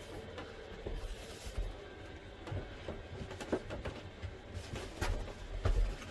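Wooden frame knocking and bumping as it is held up and pushed into place against a van's ceiling, a few short knocks over low handling noise, loudest near the end.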